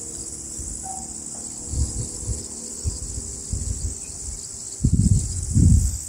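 Steady, high-pitched chirring of crickets, with irregular low rumbles that grow loudest near the end.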